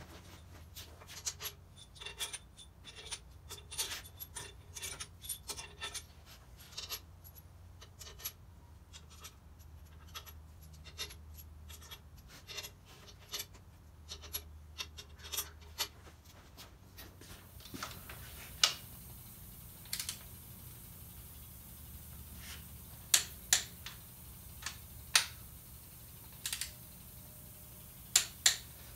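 Small metal engine parts clinking and tapping as they are handled: a quick run of light clicks, some with a short metallic ring, then a few sharper, louder knocks spaced a few seconds apart.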